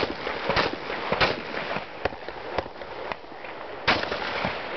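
Shotgun fired in quick succession: about six sharp shots at uneven spacing, three loud ones in the first second and a half, fainter ones after, and another loud shot near the end.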